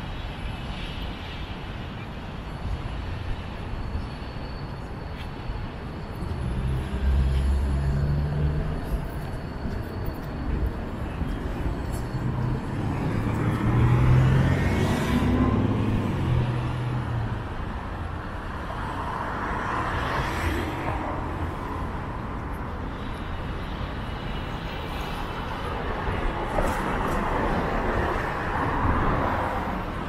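Downtown street traffic: cars and heavier vehicles passing, with a low engine rumble swelling twice in the first half and several passing swells later on.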